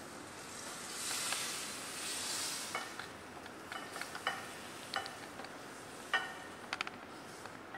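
Stir-fried chicken with ginger being tipped from a hot stainless steel saucepan onto a plate: a sizzling hiss that swells and fades over the first few seconds, then irregular light knocks and scrapes of a wooden spatula against the pan as the food is pushed out.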